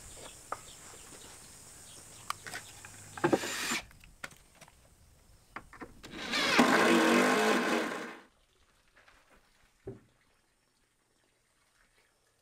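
Cordless drill-driver running for about two seconds as it drives a screw up into a plywood shelf to mount a hinge. A shorter burst of the tool comes about three seconds in, among light clicks and knocks, and a single knock follows near the end.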